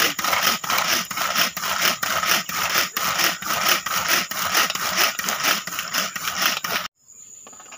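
A hand-pull cord food chopper being worked, its cord pulled out and snapping back about twice a second while the spinning blades chop onion in the bowl. The rasping strokes stop suddenly near the end.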